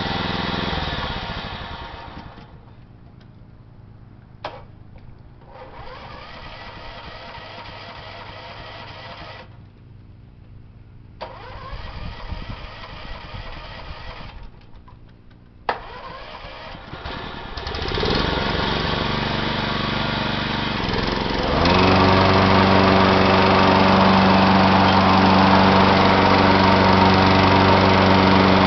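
John Deere 14SE walk-behind mower engine running, dropping to a low idle about two seconds in, with a couple of sharp clicks during the quiet stretch. It then speeds up about 18 seconds in and again about 22 seconds in, settling into a loud, steady high-speed run.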